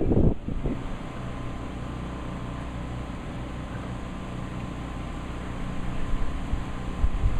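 Steady hiss of rain over a flooded yard, with a low, steady mechanical hum underneath. Wind buffets the microphone at the very start and again near the end.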